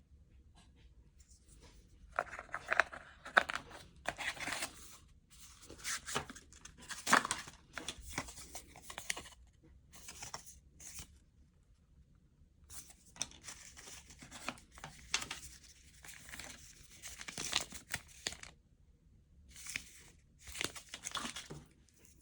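Packaging being torn open and handled: paper and cardboard tearing and rustling in irregular bursts, with short pauses between them.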